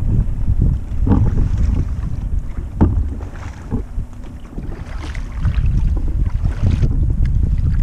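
Wind buffeting the microphone in a steady low rumble, with splashes and drips from a double-bladed kayak paddle dipping into the water and lifting out, scattered through the middle.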